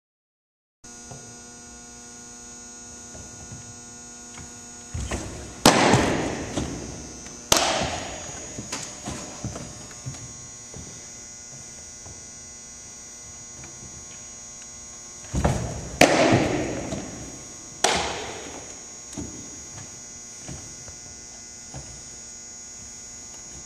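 Two baseball pitches in a gymnasium. Each time, a thump from the pitcher's stride on the wooden mound is followed at once by a loud pop of the ball into the catcher's mitt, echoing off the gym walls, and a softer glove pop about two seconds later. A steady electrical hum sits underneath.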